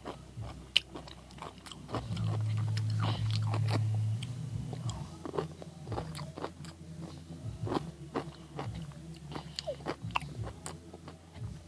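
A pickle being bitten and chewed: irregular crunches and wet clicks. A steady low hum comes in for about two seconds, a couple of seconds in.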